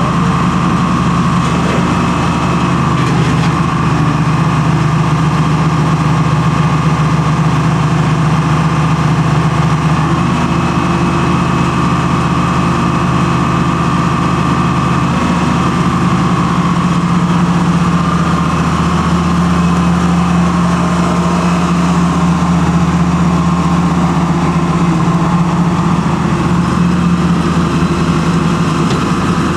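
Diesel engine of a 1979 Bantam C-366 hydraulic crawler excavator running steadily, its note shifting slightly now and then as the boom, bucket and hydraulic thumb are worked and the upper swings.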